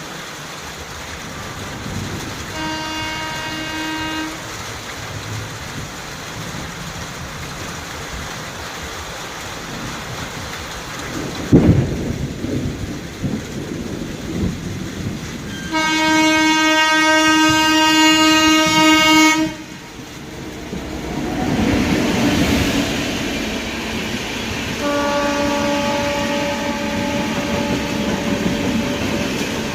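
Train horn sounding three times over the steady rumble and clatter of a train running through a station without stopping: a short blast, a louder blast of about four seconds in the middle, and a third that starts near the end and holds. A single sharp bang comes about twelve seconds in.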